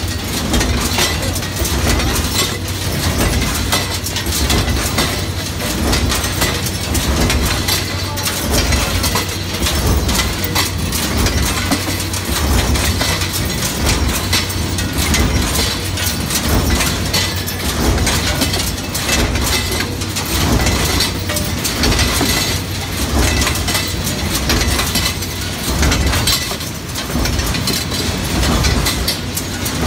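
Coil-fed metal stamping press line running: a steady low machine hum under rapid, repeated metallic clanks and the clinking of metal parts.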